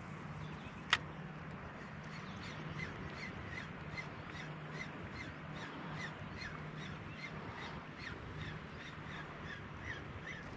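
Ryobi Maturity 3000 spinning reel being cranked to retrieve a lure, a soft rhythmic ticking about two to three times a second, after one sharp click about a second in.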